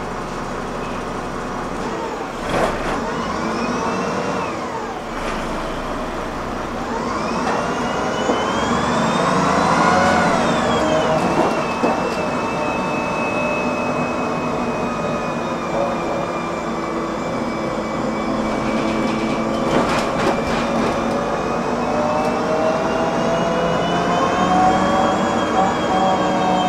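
Public-transport vehicle running, heard from aboard: its drive whine rises in pitch to a peak about ten seconds in, falls away and holds a steady whine, then climbs gently again near the end, over a steady running rumble, with a few clicks and knocks.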